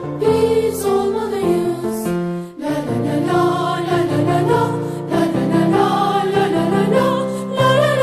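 A school anthem sung with instrumental accompaniment; the music breaks off briefly about two and a half seconds in, then goes on.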